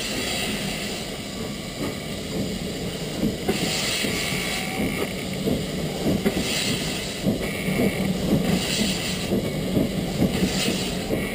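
Beyer, Peacock steam tank locomotive No. 4 Loch (built 1874) starting away at walking pace. Its exhaust beats come as hisses of steam about every couple of seconds, over a steady clanking of the motion and wheels.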